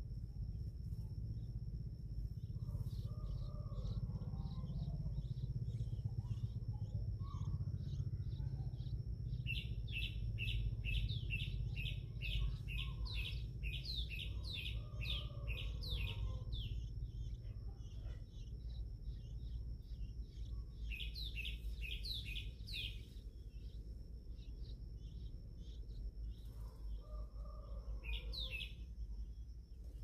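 Bulbul nestlings begging: rapid runs of high, falling cheeps, several a second, in three bouts, the longest while a parent is at the nest feeding them. A low steady rumble runs underneath.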